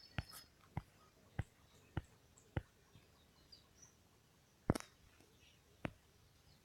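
A run of faint, sharp clicks: five evenly spaced about two a second, then two more after a short gap, with faint bird chirps behind.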